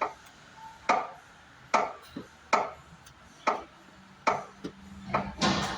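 Clutch pedal of a Honda Civic FD being pumped to bleed air from the hydraulic clutch line, clicking sharply about once every 0.8 s. A short hiss comes near the end.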